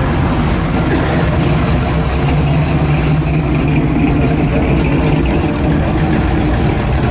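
Engines of classic American muscle cars running at low speed as they cruise past in a slow line: a steady low exhaust rumble.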